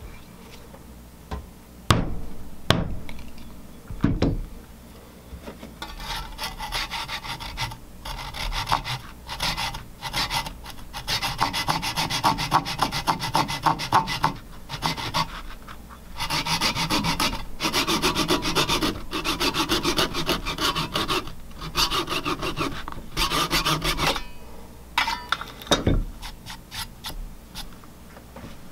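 Three sharp knocks, then a fine-toothed Japanese-style handsaw cutting a protruding wooden plug flush with the face of the board, in quick rasping strokes broken by short pauses. One more thump near the end.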